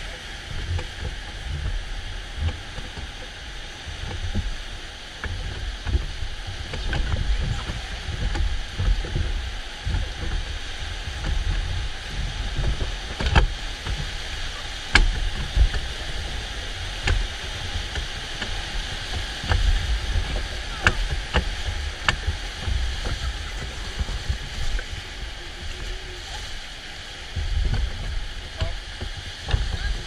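Whitewater rapids rushing and churning around an inflatable raft as it runs through them: a steady hiss of white water with irregular low rumbles and a few sharp knocks.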